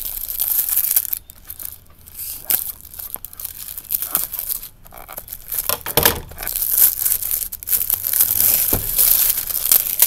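Clear plastic wrap on a cardboard box being cut with scissors, then torn and pulled off, crinkling and crackling irregularly.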